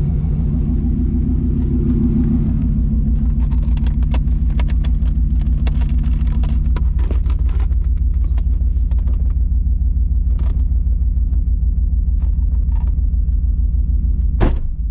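1994 Pontiac Firebird Trans Am's LT1 V8 idling with a steady, deep rumble, its engine speed unchanging. A sharp click near the end.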